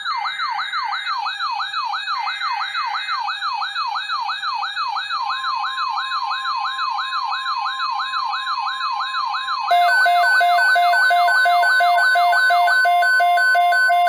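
Electronic emergency-alert sounds: a siren repeating a falling sweep about three times a second, with a steady tone joining under it about halfway. About ten seconds in, a louder pulsing two-tone alarm takes over.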